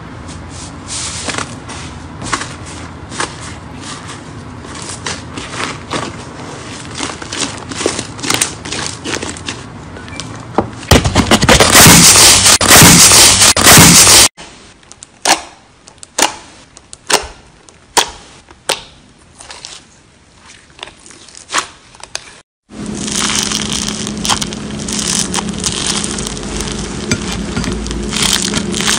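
Slime being squeezed and worked by hand: a run of crackling, popping clicks, then a loud dense crunching for a few seconds, then separate squelches a little over one a second. After a short break, steady crunching.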